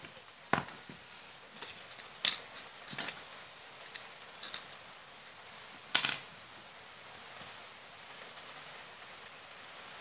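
A handful of short, sharp metallic clicks and clinks as a small DC motor and a small brass fitting are handled and knocked against a hard tabletop, the loudest about six seconds in.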